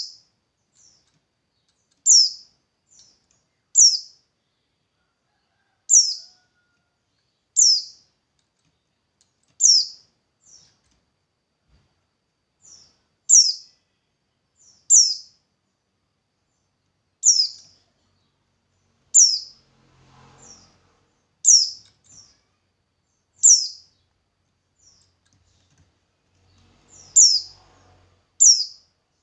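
A bird repeating one short, high chirp that falls in pitch, about every one and a half to two seconds, with fainter short notes in between.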